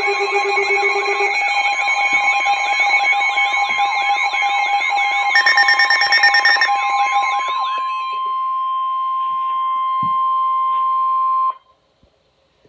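Several electronic emergency alert alarms sound together for a severe thunderstorm warning: warbling siren tones over steady beeping tones. About eight seconds in only one steady tone near 1 kHz is left, the weather radio's 1050 Hz warning alarm tone, and it cuts off suddenly a little over a second before the end.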